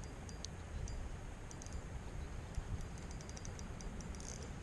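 Quiet open-air ambience: a low steady rumble with scattered faint light clicks and ticks.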